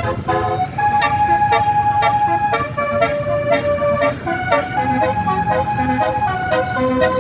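A bus's telolet basuri multi-tone horn playing a tune, changing note every half second or so with a few notes held longer, over a low rumble.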